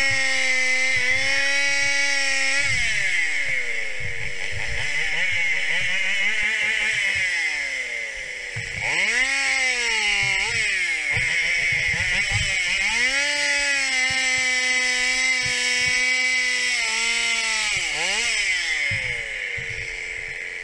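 Stihl 021 two-stroke chainsaw revved to full throttle and let back toward idle several times: high and steady at first, dropping after a couple of seconds, opened up again about nine seconds in, and held high for several seconds before winding down near the end.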